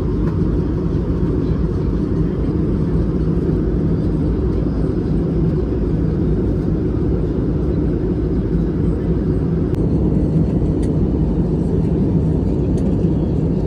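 Steady low rumble of an airliner's jet engines and airflow heard from inside the passenger cabin in flight, with a few faint clicks near the end.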